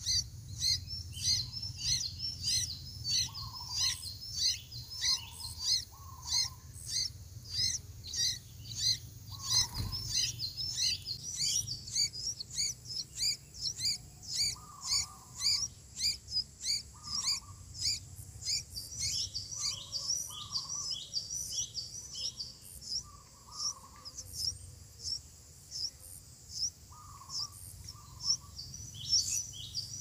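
Sooty-headed bulbul nestlings begging: fast, high-pitched chirps, about three a second, with short lower notes every second or two. A single thump sounds about ten seconds in.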